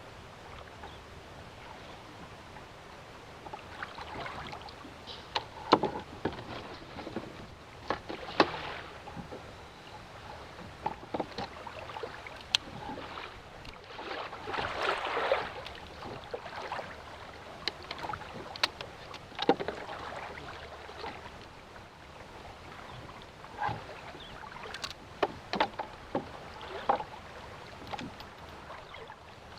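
Water lapping and splashing around a fishing kayak, with scattered sharp clicks and knocks from gear handled on board, and a longer splash midway.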